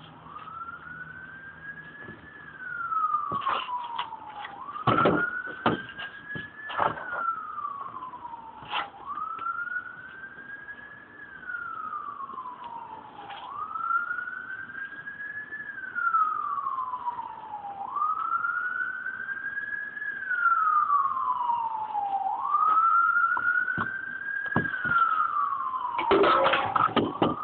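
Emergency vehicle siren wailing: a single tone rising and falling slowly, about once every four and a half seconds. Scattered knocks and clatter come over it, most of them near the end.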